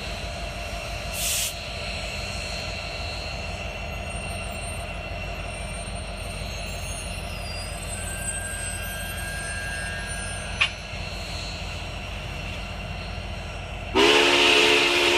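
Steady low rumble of a passing train, then near the end Union Pacific 844's steam whistle blows: a loud chord over a hiss of steam.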